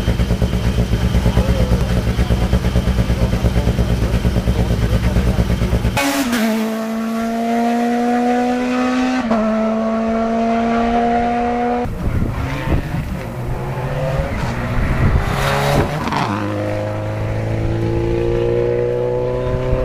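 Rally car engine idling with a fast, lumpy pulsing beat. After a sudden cut, rally cars accelerate hard away on the road, the engine pitch climbing, dropping briefly at a gear change and climbing again, and another car accelerates near the end.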